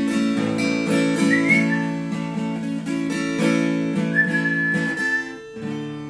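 Acoustic guitar playing chords in a slow song, with a high whistled note sounding over it twice, about a second in and again near the end.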